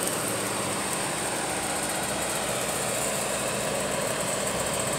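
An engine idling steadily, a constant unchanging hum with a steady high hiss over it.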